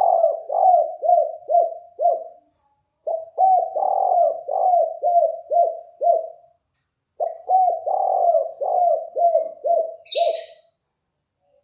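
Spotted dove cooing: three phrases of rapid, repeated coo notes with short pauses between them, the song type that keepers call 'kuk 4'. A brief hiss comes near the end.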